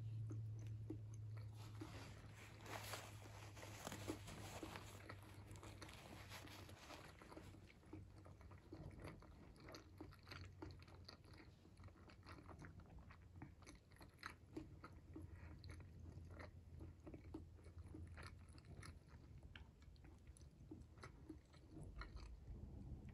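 Close-miked chewing and biting of hard-boiled egg and garlic shrimp. The chewing is dense for the first few seconds, then goes on as scattered small clicks.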